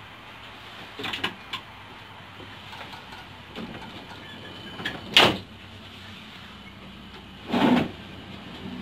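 Diesel passenger train pulling away, heard from inside the rear carriage: a steady low running hum, broken by several sharp clunks, the loudest about five seconds in and another broader one near the end.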